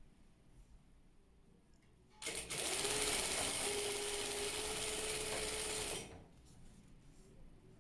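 Industrial sewing machine running steadily for about four seconds, stitching along a strip of fabric. It starts a little after two seconds in and stops sharply near six seconds.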